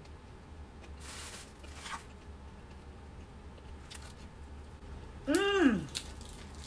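Soft eating sounds, faint rustling and chewing, as a woman eats a fried snack; a little after five seconds she makes a short voiced sound with her mouth full, its pitch rising and then falling.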